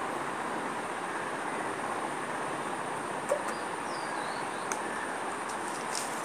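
Steady, even background noise with a thin high whine over it. There are a few short, soft clicks about three seconds in and again near the end, and a couple of faint quick chirps in the middle.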